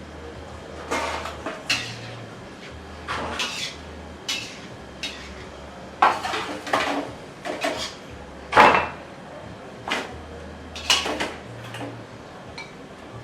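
Kitchen utensils clinking and knocking against dishes and bowls in an irregular run of short hits, some with a brief ring or scrape, while cooking food is prepared.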